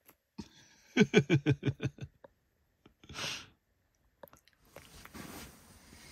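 A person's voice making a quick run of about ten short pitched pulses in a second, like a laugh, followed by a brief breathy hiss. A faint steady hiss starts near the end.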